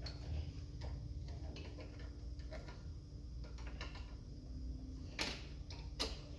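Irregular light clicks and taps of tools and parts being handled during brake work, with two sharper clicks near the end, over a steady low rumble.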